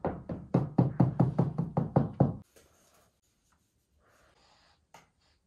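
A fast run of about a dozen solid knocks, roughly five a second, that stops about two and a half seconds in.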